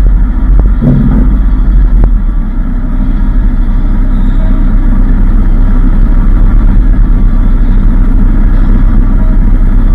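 Heavy diesel truck engines running with a steady low rumble as a neighbouring truck creeps forward into its parking spot; a short higher tone sounds about a second in.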